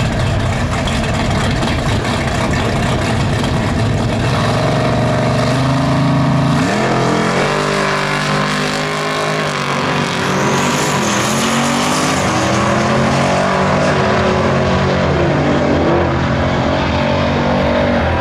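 Two drag-racing Chevrolet Camaros, a third-generation and a sixth-generation, running at the start line and revving up, then launching about six seconds in and accelerating hard down the strip. The engine pitch climbs and drops back several times as they shift through the gears.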